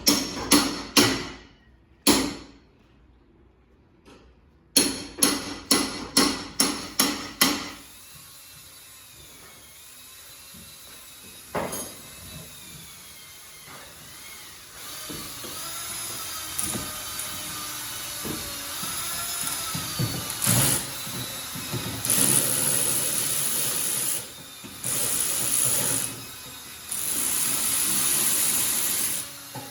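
Pneumatic impact wrench rattling off lug nuts in short bursts, a few at first, then a quick run of about seven, followed by steady shop noise and three loud hisses of air late on.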